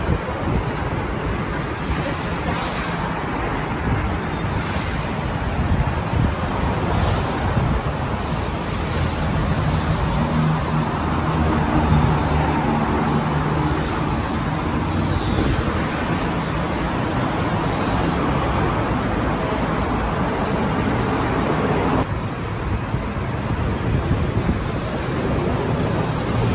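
Steady road-traffic noise from cars and buses on the busy roads and flyovers below, with a heavier engine's low hum swelling around the middle. About 22 seconds in the mix changes abruptly to a slightly quieter traffic hum.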